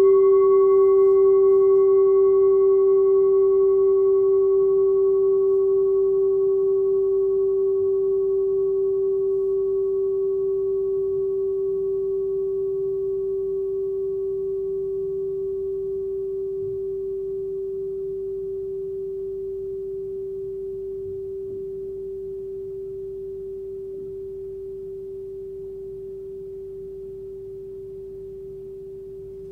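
Forged Tibetan singing bowl, 13.5 cm across and tuned to G at about 389 Hz, ringing on after one strike of a felt mallet. It holds one pure tone with a slight pulsing, slowly dying away, while its higher overtones fade out over the first several seconds.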